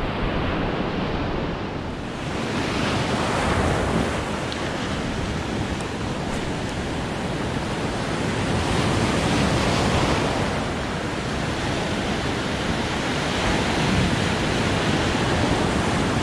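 Ocean surf breaking and washing up the shore, a steady rushing that surges louder twice as waves come in, with wind buffeting the microphone.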